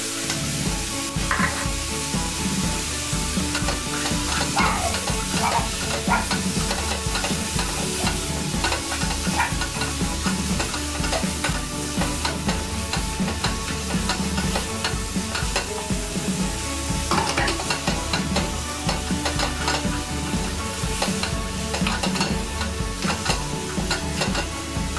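Chopped bacon, onions and yellow peppers sizzling as they fry in a saucepan, stirred with a spoon, with a steady hiss and the occasional scrape of the spoon.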